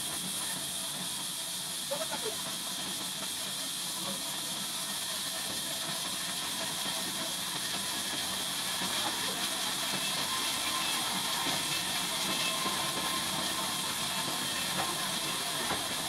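Steady hissing noise from a running log band sawmill, slowly growing a little louder.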